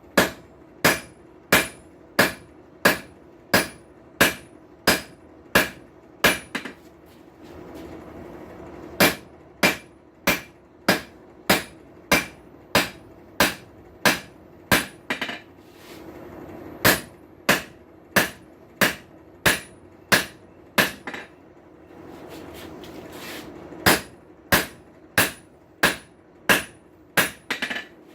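Hand hammer striking hot steel on an anvil while forging a tong blank, about one and a half blows a second with a bright ring on each. The blows come in three or four runs with short pauses between them.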